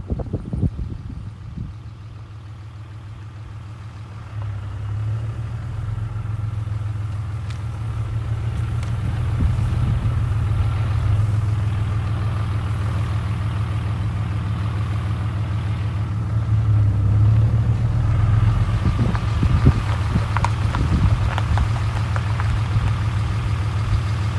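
A car's engine running steadily with a low hum, getting louder about four seconds in, with a few light clicks near the end.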